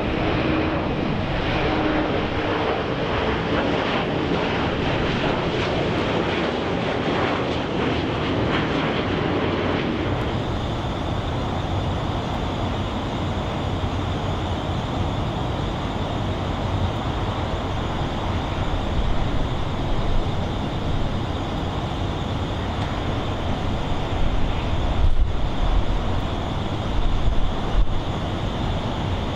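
Jet airliner engines at takeoff power. An MD-80-series jet with rear-mounted engines climbs away. After a sudden change about ten seconds in, a twin-engine Boeing 767 is on its takeoff roll, its engine roar growing louder and more uneven near the end.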